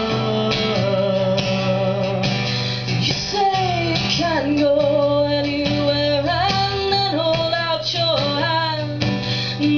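A woman singing a melody over her own acoustic guitar accompaniment, the guitar holding steady chords beneath the voice.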